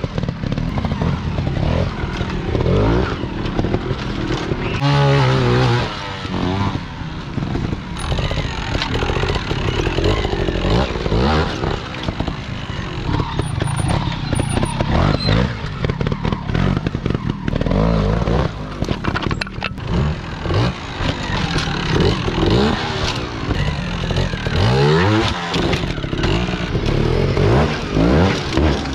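Trials motorcycle engines revving in short blips, the pitch rising and falling again and again as the bikes are ridden up and over rock steps.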